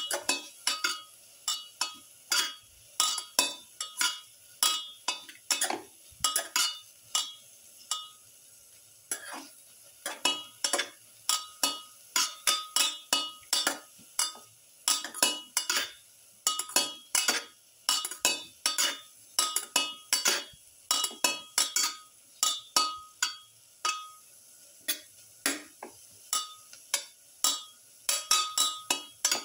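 A utensil stirring sliced onions sautéing in a pan, clinking and scraping against the pan about two or three times a second with brief pauses.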